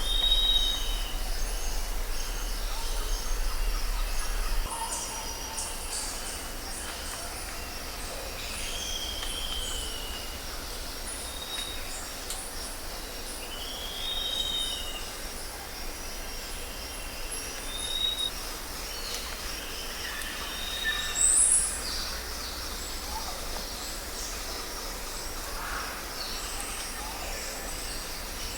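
Outdoor nature ambience: a bird repeats a short arched call every few seconds over a steady high chirring of insects. A low rumble runs under the first few seconds, then drops away.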